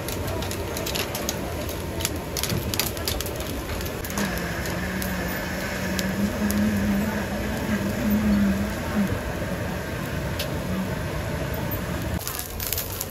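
Squid crackling and popping on a charcoal grill over steady outdoor market bustle, with a steady low drone coming in about four seconds in and fading out a few seconds before the end.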